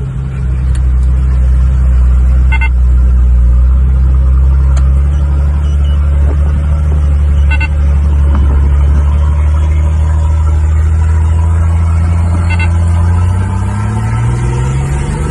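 Turbocharged Nissan Y60 Patrol engine pulling hard under load on a steep climb: a steady, deep drone. Near the end its pitch rises as the revs climb. A faint short chirp comes about every five seconds.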